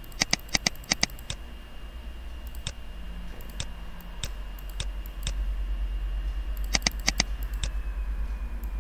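Computer mouse clicking while a Bezier outline is traced point by point: a quick run of about seven clicks, then single clicks about a second apart, then another quick cluster of four. A steady low mains hum runs underneath and gets louder about halfway through.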